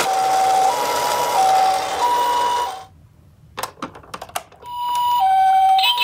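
Toy ambulance's electronic two-tone siren going pee-po, alternating a high and a low note about every 0.7 s. About three seconds in it stops briefly, with a few sharp clicks in the pause, then starts again near the end.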